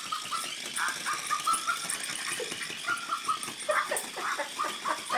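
Small dogs vocalising in short repeated yips as they tussle over a paper bag, with the bag crinkling and rustling between them.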